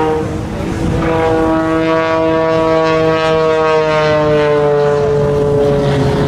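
Aerobatic biplane's piston engine and propeller running at power overhead, one steady pitched drone. The note dips briefly about half a second in, then slowly falls over the last few seconds as the plane climbs steeply.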